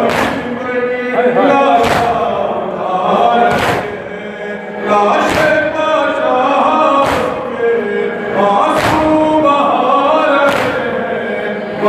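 Men chanting a noha, a mourning lament, in chorus, punctuated by loud unison chest-beating (matam): seven hand strikes at a slow, even beat, about one every 1.7 seconds.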